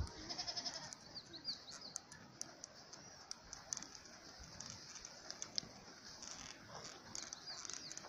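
Quiet sounds of a yak pulling a wooden plough through dry soil: scattered soft hoof steps and scraping. A faint animal call comes near the start, and small high chirps come twice.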